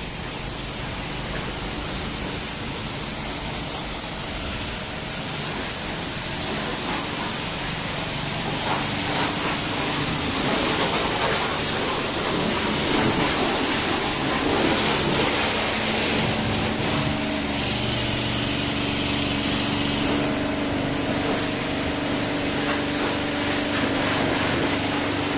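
Wind and road noise from a moving vehicle, giving way about a third of the way in to the hiss of a pressure-washer jet spraying water onto a car. From about two-thirds of the way in, the AWE Industries HPW-4000 pressure washer's motor and pump run with a steady hum under the spray.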